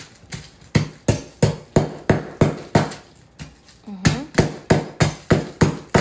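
Kitchen knife striking a hard Moroccan sugar loaf over and over, chopping it into lumps: sharp, regular blows about three a second, with a short pause a little past the middle before they resume.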